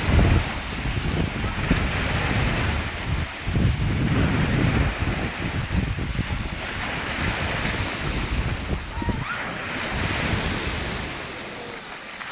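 Waves on Lake Baikal washing in, a hiss that swells and falls back every few seconds, with wind gusting on the microphone in a low, uneven rumble.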